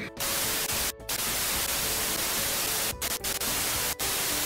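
Television static sound effect: a steady, loud hiss of white noise, cut by brief dropouts about a second in, twice around three seconds and once around four seconds.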